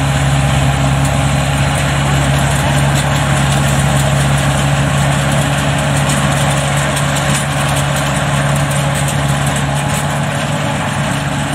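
Vietnamese-built rice combine harvester running steadily as it cuts through standing rice: its engine and working machinery give a steady low hum over dense mechanical noise.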